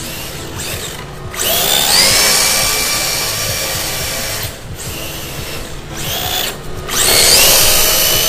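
Yokomo YD RC drift car's electric motor whining, with its pitch rising and levelling off as the car accelerates, twice.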